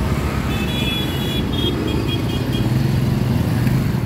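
Busy city street traffic: cars and motorcycles running steadily. About half a second in, a vehicle horn sounds once for about a second, then gives a few short beeps.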